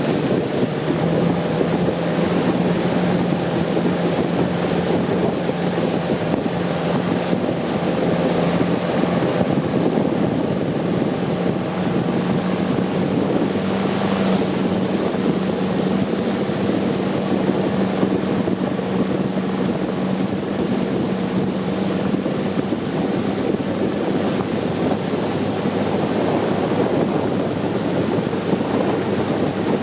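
Long-tail boat engine running steadily under way, with the rush of water and wind buffeting the microphone. The engine's hum fades out about three-quarters of the way through, leaving the water and wind noise.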